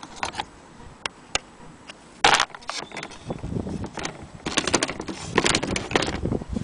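Irregular clicks, knocks and rattles of an old wall clock and its loose parts being handled, with a sharp knock a little over two seconds in.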